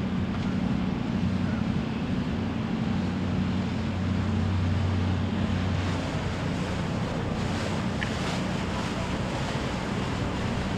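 Low, steady drone of a passing boat's engine over wind noise on the microphone and the wash of water. The deeper part of the drone fades about halfway through.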